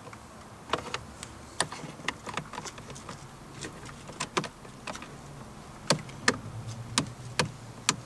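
Irregular sharp clicks and light knocks of a screwdriver and plastic steering-column trim as the cover fasteners are put in, with a few louder clicks in the second half.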